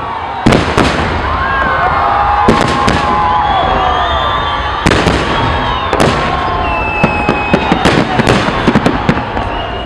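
Fireworks display: shells bursting with sharp bangs every second or two, then a quick run of crackling bangs near the end, over a continuous rumble with long gliding whistling tones.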